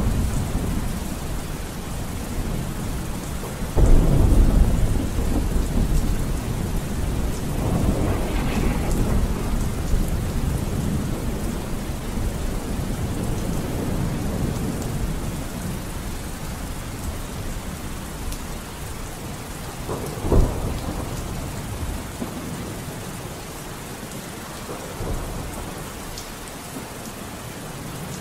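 Steady rain with rolling thunder. The biggest roll comes about four seconds in, and a shorter, sharper clap about twenty seconds in.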